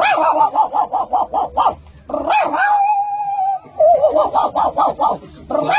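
A man imitating a small dog with his voice: quick runs of high yips, about five a second, broken in the middle by one long held whine.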